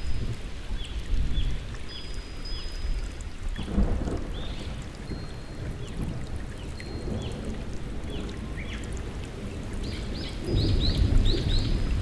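Steady rain with low rumbles of thunder, swelling about four seconds in and again near the end. A bird calls over it with short, high chirps repeated every half second or so, coming faster near the end.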